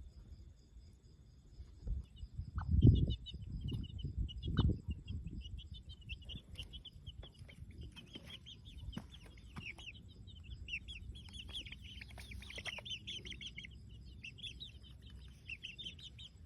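Chickens with chicks: many short, high peeping chirps in quick succession, joined by clucks, filling the second half. A few loud, dull thumps sound in the first few seconds.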